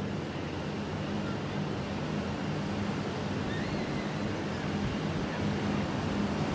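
Steady rushing of ocean surf, with wind on the microphone and a low steady hum underneath.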